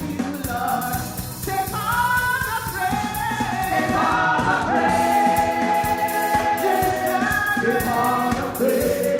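Gospel worship song sung by a choir over band accompaniment with a steady beat, the voices holding long notes.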